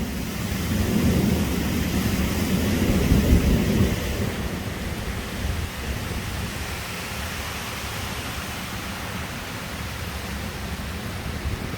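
Heavy rain hissing steadily in a thunderstorm, with a low rumble of thunder that swells over the first few seconds, peaks about three seconds in and dies away by four.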